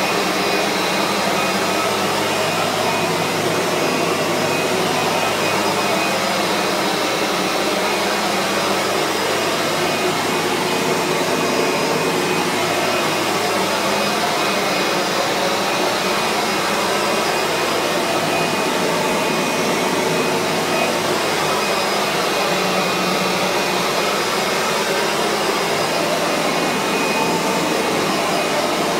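Kirby G3 upright vacuum running steadily, driving its buffing head over freshly waxed laminate flooring to buff off the wax.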